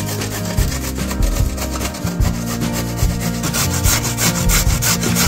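A carrot being grated on a stainless-steel box grater: quick, evenly repeated rasping strokes as the carrot is rubbed up and down the blades.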